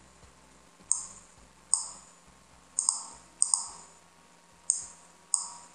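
Computer mouse clicking: six short, sharp clicks at uneven intervals, two of them quick double clicks.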